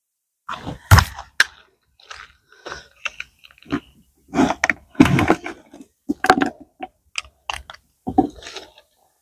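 Handling noises at a bucket: irregular crunches, knocks and rustles in quick clusters, with brief pauses between them.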